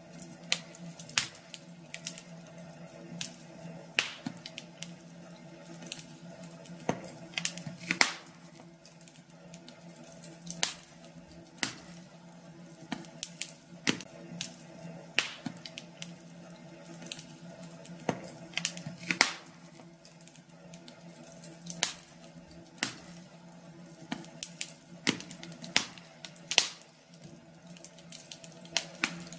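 Wood fire in a fireplace crackling, with irregular sharp pops and snaps a few times a second over a faint steady hiss.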